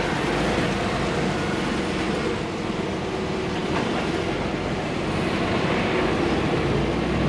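Articulated lorry's diesel engine running steadily at low speed, heard from inside the cab, with the hiss of tyres on a wet road.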